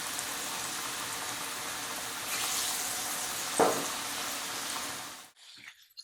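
Batter-coated chicken wings frying in hot oil on their second fry, a steady sizzle, with one short knock about three and a half seconds in. The sizzle cuts off abruptly near the end.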